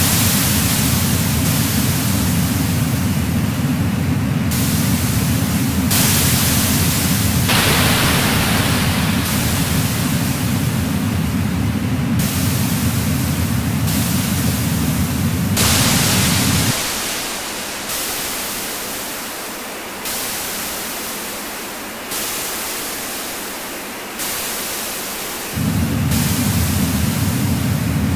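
Noise music built from layers of filtered hiss that switch on and off abruptly every second or two over a loud, steady low rumble. About two-thirds of the way in the rumble cuts out, leaving hiss that fades and restarts about every two seconds; the rumble returns near the end.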